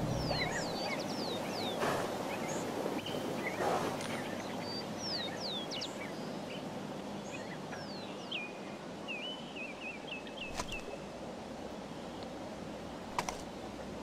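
Small birds chirping over a steady outdoor hiss: many short, falling whistled notes, with a quick run of notes about nine seconds in. A few sharp clicks come in the last few seconds.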